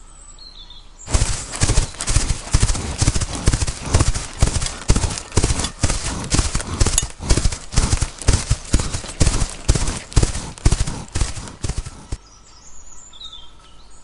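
Horses galloping: rapid, steady hoofbeats on hard ground that start suddenly about a second in and stop a couple of seconds before the end. Faint bird chirps before and after.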